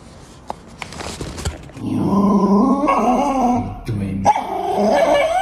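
A few faint taps as a small cardboard box is handled, then a small white dog vocalizing in long, wavering whine-like calls, in two stretches of about two seconds each with a short break between.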